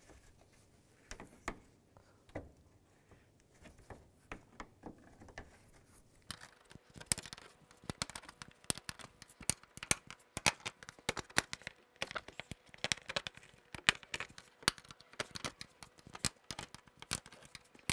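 Plastic push-pin retainers being pried out of a plastic trim panel with a trim tool: a run of short sharp clicks and scrapes. They come only now and then at first, then quickly, several a second, from about six seconds in.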